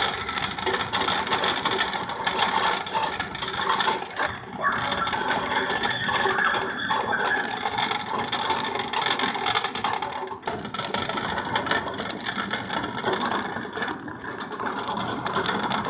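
Metal shopping cart rattling continuously as it is pushed along a store's hard floor, its wheels and wire basket clattering.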